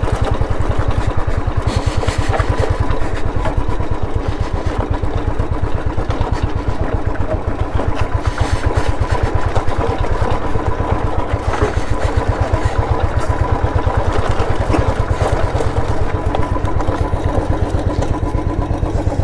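Royal Enfield Classic 350's air-cooled single-cylinder engine running at low revs with a steady, even beat as the motorcycle crawls over loose riverbed stones.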